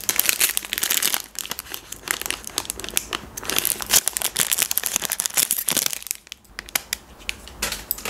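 Wrapper of a Milka chocolate-coated ice cream bar crinkling and tearing as it is opened and peeled off the bar. There is a short pause about six seconds in, then a last burst of crinkling.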